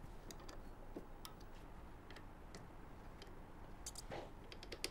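Faint, irregular metallic ticks and clicks of a T-handle Allen key seating in and turning the bolts of a go-kart brake caliper, as the bolts are checked for tightness.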